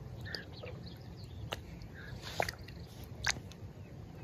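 Light splashes and drips at the water surface as remoras feed on floating cat food, with a few sharp ticks about a second apart.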